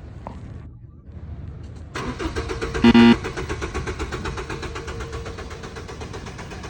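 A car engine being started: a rapid, even pulsing begins suddenly about two seconds in and runs on, with a brief loud tone about a second after it starts.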